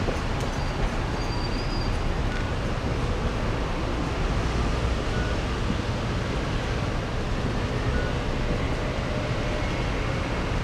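Steady rumble of rail and road traffic, with a passing train fading into general traffic noise.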